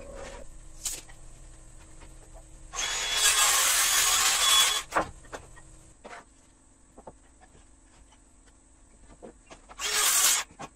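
Handheld circular saw crosscutting pine boards: a cut lasting about two seconds, then a short half-second cut near the end, with light knocks of boards being handled in between.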